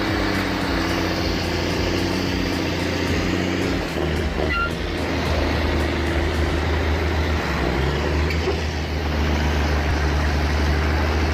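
Heavy diesel engine running under load with a deep, steady drone. Its note shifts about four seconds in and again near eight seconds.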